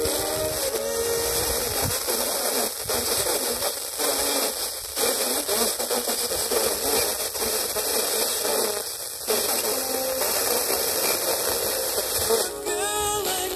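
TEF6686 FM receiver tuned to weak, distant FM signals: heavy static hiss with faint speech and music buried underneath. It cuts out briefly a few times as it steps between frequencies. Near the end it lands on a clearer station playing music.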